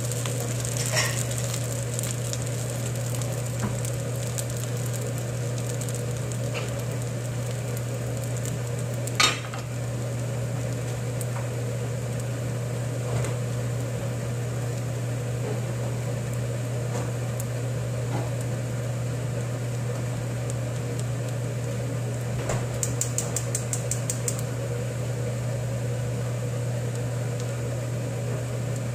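Kimchi fried rice sizzling steadily in a nonstick frying pan over a gas flame, over a steady low hum. There is one sharp knock about nine seconds in and a quick run of small clicks a little past twenty seconds.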